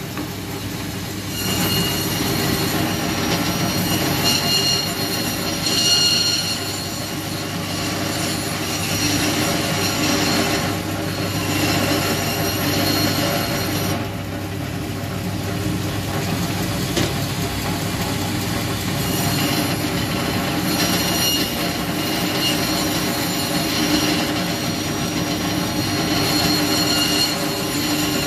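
Meat band saw running steadily as its blade cuts a marbled beef rib roast into steaks. A constant motor hum carries a high whine that comes and goes several times as each cut goes through.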